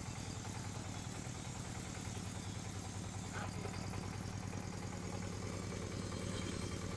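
Floating fish-feed pellet extruder running steadily, its drive giving a constant low engine-like hum with a fast pulsing throb.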